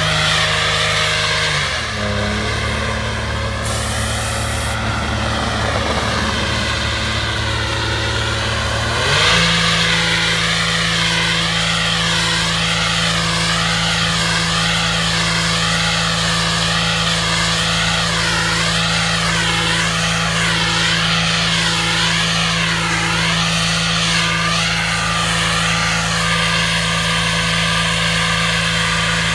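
Engine and blower of a spray-injection road-patching rig running steadily. Its note drops lower about two seconds in and comes back up about nine seconds in, with a high whine over it that wavers up and down about once a second.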